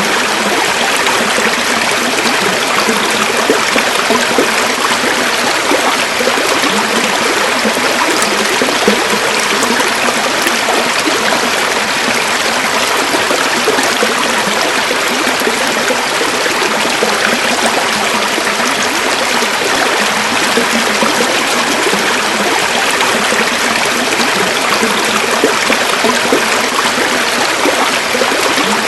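River water flowing over stones, a steady rushing and babbling.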